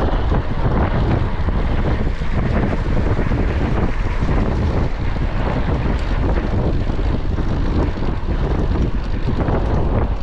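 Steady wind noise buffeting the microphone of a camera on a moving track bike, loudest in the low end.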